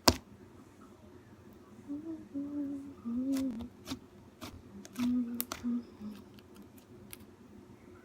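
A young person humming a tune under their breath in short broken phrases, with scattered sharp clicks in between.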